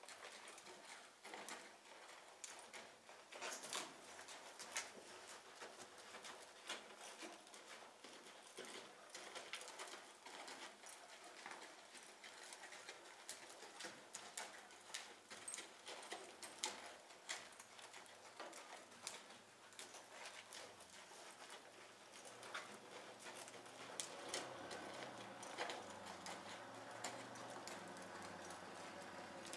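Faint, irregular hoofbeats of a ridden horse moving on soft sand footing, heard as scattered soft clicks and scuffs. A steady low hum comes in about three-quarters of the way through.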